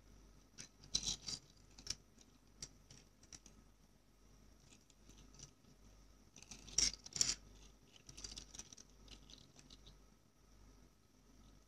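Tomica die-cast Nissan GT-R R35 toy cars being turned and slid on a shelf by hand: faint clicks and scrapes of the small models' wheels and bodies and of fingers on them. The clicks bunch up about a second in and again around the middle.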